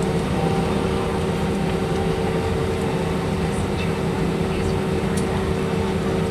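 Cabin noise inside an Airbus A321 taxiing: a steady low rumble with a constant hum from the jet engines at taxi power.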